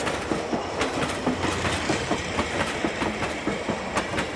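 Centy Toys battery-powered toy train running on its track, with a steady motor whir and many irregular clicks from the wheels and couplings over the track.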